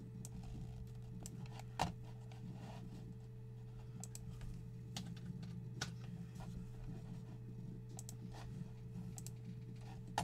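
Typing on a computer keyboard: irregular key clicks, a few louder than the rest, over a steady low electrical hum.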